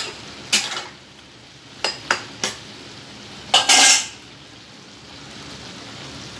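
Potato and bitter gourd sizzling steadily in a non-stick wok while a spatula scrapes and knocks against the pan a few times. The loudest and longest scrape comes about three and a half seconds in.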